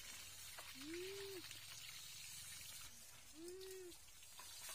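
Faint trickle of a shallow stream, with two drawn-out calls, each rising then falling in pitch, about two and a half seconds apart.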